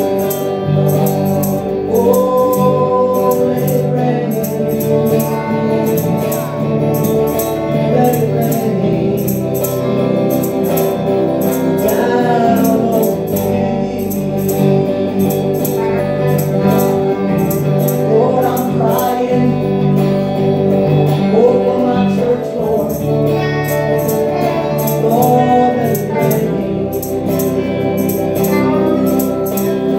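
Live gospel song: a woman's voice singing a melody over electric guitar and keyboard chords, with a steady high percussion beat.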